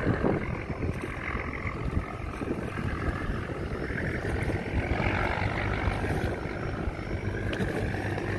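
Fishing trawler's diesel engine running under heavy throttle as the boat motors away, a steady low pulsing exhaust with no letup.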